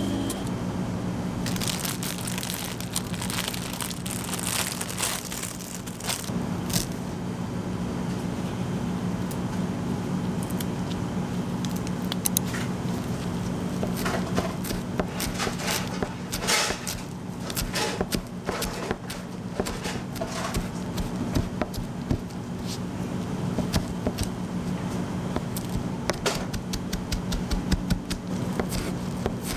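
Kitchen handling sounds: rustling, crinkling and short clicks and taps, with a knife chopping parsley on a cutting board near the end, all over a steady low hum.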